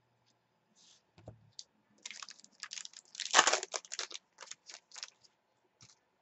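Foil trading card pack torn open and crinkled in the hands: a dense run of crackling about two seconds in, loudest near the middle, then a few light ticks.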